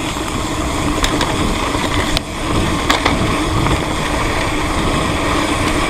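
Mountain bike on a trail: wind rushing over the mic and tyres rolling on dirt, with the Speedone Torpedo rear hub's 96-engagement freewheel buzzing as it coasts. A few sharp knocks come from bumps, one about a second in and two more near two and three seconds in.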